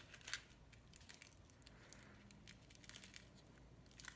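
Faint crinkling and small clicks of scrunched aluminium foil being handled as stick legs are pushed into it.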